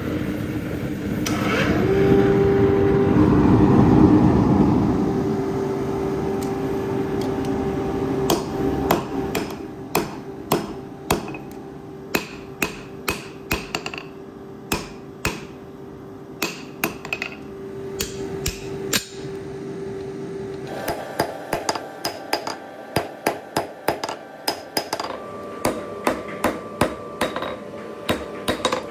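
A forge's fire and blower running, a loud low rumble with a steady hum. From about eight seconds in, a red-hot steel knife blade is hammered on an anvil: sharp metallic hammer blows, at first about one a second, then in quicker runs of two or three a second near the end.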